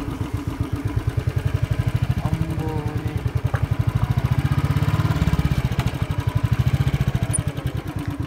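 Motorcycle engine running while being ridden, a rapid, even putter of firing pulses that swells a little louder about five seconds in.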